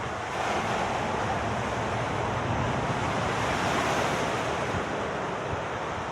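Sea waves breaking on a beach: a rushing wash that swells over the first few seconds and eases off near the end, with wind buffeting the microphone.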